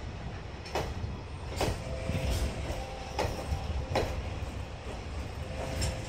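JR Freight container train of Koki 107 flatcars rolling past at steady speed: a low rumble of wheels with a clack roughly every second as wheelsets cross rail joints, and a faint thin whine coming and going.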